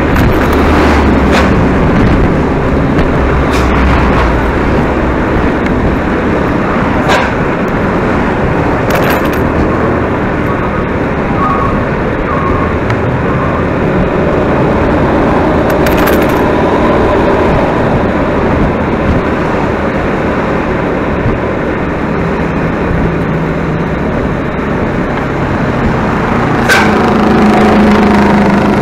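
A tourist bus driving, heard from on board: steady engine and road noise, with a few short clicks or knocks and a louder low tone coming in near the end.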